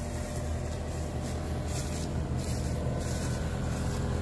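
Mini excavator's diesel engine running steadily.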